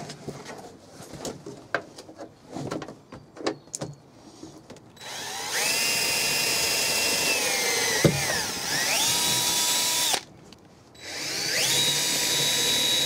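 Small rustles and clicks as carpet is handled, then a DeWalt cordless drill runs with its bit into the carpeted floor. Its whine sags in pitch once under load, stops, and a second later spins up again and runs steadily.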